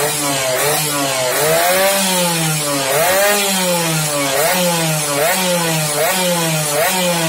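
Yamaha RX-King's two-stroke single-cylinder engine revved in repeated quick throttle blips through a Creampie PDK aftermarket exhaust, each rev rising sharply and dropping back, about one every second.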